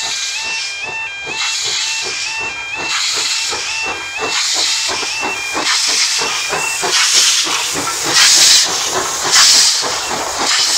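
BR Standard Class 9F steam locomotive 92203 Black Prince passing slowly, its exhaust beating about three times a second while steam hisses from the cylinders in bursts that grow louder towards the end. Over the first two-thirds the level crossing's two-tone warning alarm warbles steadily, then it is lost under the locomotive.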